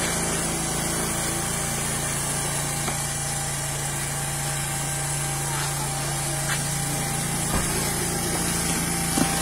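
Small engine of a homemade motorized hand cart running with a steady hum.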